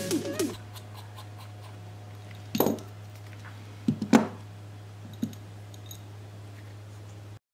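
A few light clicks and scrapes on a hard surface, the loudest about four seconds in, over a steady low hum, with a falling run of music notes dying away at the very start. The sound cuts off abruptly near the end.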